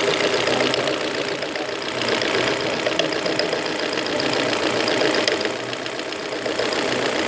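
Volvo V40 1.8 bi-fuel petrol engine idling at steady revs with a rapid, even clicking-ticking from the engine, which eases off briefly twice. The cause is unknown to the owner: the noise appeared suddenly, is loudest at idle and comes and goes, with the timing belt and oil already changed and no warning lights.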